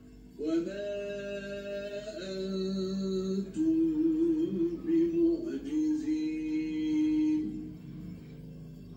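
Quran recitation by a male reciter heard from a television in a small room: one voice chanting long, held, ornamented notes in several phrases with short pauses between them, fading near the end.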